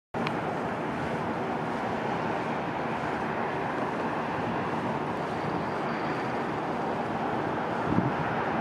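Steady distant rumble of road and airfield traffic, with a brief low thump about eight seconds in.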